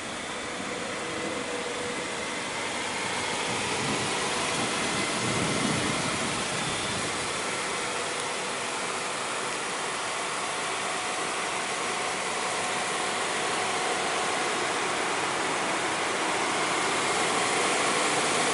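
Steady motor-vehicle engine hum under a broad hiss, with a low swell about five seconds in.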